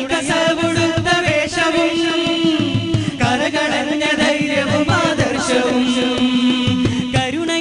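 Malayalam qawwali song: a voice sings a bending, drawn-out melodic line over a steady beat of drum strokes.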